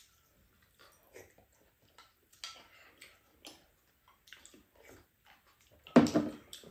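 Quiet eating at a table: wooden spoons and chopsticks tapping and scraping ceramic bowls, with chewing and slurping in scattered soft clicks. About six seconds in comes one louder, brief sound with a low pitch to it.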